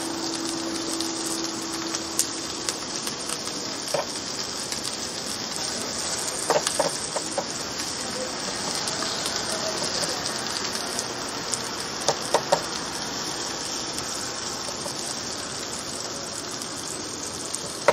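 T-bone steak sizzling on a hot electric contact grill, a steady hiss, with a few sharp clicks of metal tongs against the meat and grill plate about four, six and twelve seconds in.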